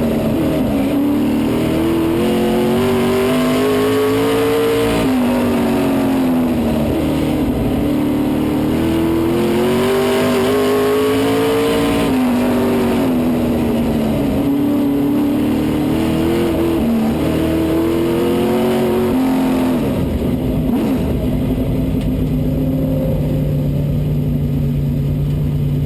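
Limited Late Model stock car engine heard from on board, revving up along each straightaway and dropping off into the turns, several times over. About 20 seconds in it eases off and settles to a steady low note.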